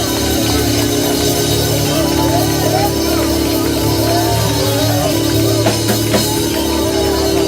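Live church praise music: held chords over a steady bass line, with a few drum hits about six seconds in.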